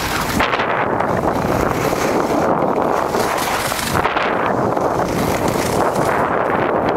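Wind rushing over the microphone of a fast-moving skier, with the skis hissing and scraping on packed snow, the hiss swelling and fading with the turns.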